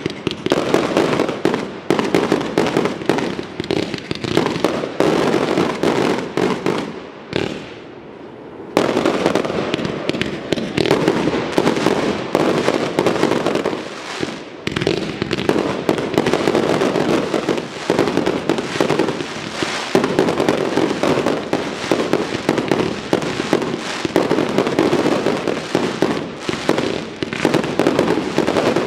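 Fireworks display: a dense, rapid run of aerial shell launches and bursts, easing into a short lull about seven seconds in before a heavy barrage starts abruptly again.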